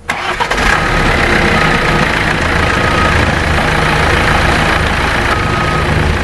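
Komatsu D65E-12 crawler bulldozer's diesel engine running steadily, with a short high-pitched tone that sounds briefly several times over it.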